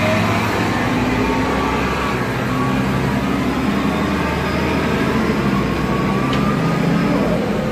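Diesel engine of a 2002 Nova Bus LFS city bus running under way: a steady low drone with a whine that rises in pitch about five seconds in as the bus gathers speed.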